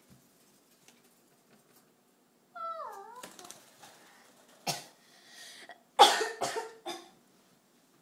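A person coughing: one sharp cough near the middle, then a quick run of three coughs, the loudest sounds here. Before them, a short wavering cry that dips and rises in pitch.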